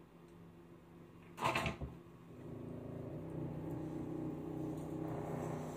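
A clunk, then a small appliance motor starts humming steadily and runs on, growing a little louder toward the end.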